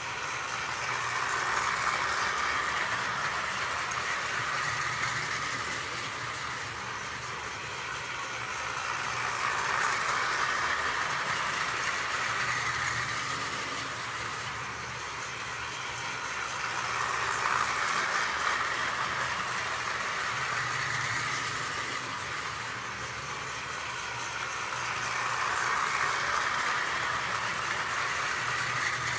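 Marx tinplate toy train, a 490 locomotive pulling four-wheel plastic freight cars, running around a three-rail track loop. It makes a steady rattle and clatter of wheels on the rails that swells each time the train comes past, about every eight seconds.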